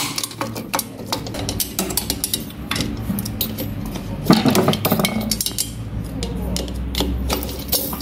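Irregular clicks and clinks of hand tools and small plastic and metal parts being handled as the relay and electrical parts are taken off a refrigerator compressor, over background music.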